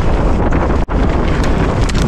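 Wind buffeting the camera microphone on a fast mountain-bike descent, mixed with knobby tyres rolling over loose rock and gravel and a few short clatters. The sound cuts out for an instant a little under a second in.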